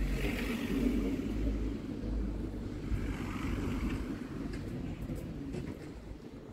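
City road traffic: cars passing close by with a deep, steady rumble and tyre noise, easing off over the last couple of seconds.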